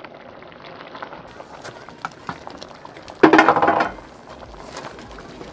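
Large aluminium pot of meat boiling, with a wooden spatula stirring through it and clicking against the pot. About three seconds in there is one loud, short pitched sound, under a second long.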